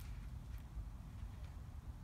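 A few faint, light metallic clicks of a small caged ball thrust bearing being turned over in gloved hands, over a steady low background rumble.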